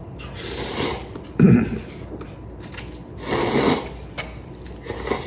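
A man slurping instant cup ramen noodles with hissing sucks: two longer slurps and a short one near the end. There is also a brief low sound about one and a half seconds in.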